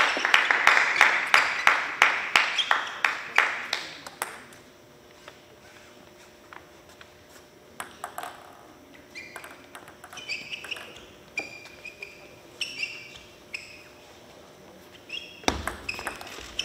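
Table tennis ball pinging off paddle and table: a fast, even run of sharp clicks, about four a second, in the first few seconds, then scattered short ringing pings while play is reset, and a new rally's hits starting near the end.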